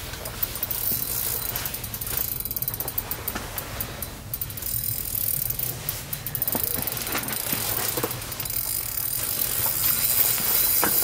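Spinning reel on an ice-fishing rod clicking rapidly as a hooked lake trout is played on the line.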